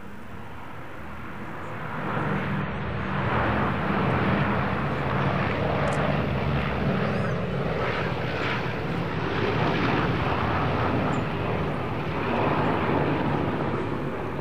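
Boeing B-17G Flying Fortress's Wright Cyclone radial piston engines running in flight, growing louder about two seconds in and then staying steady and strong.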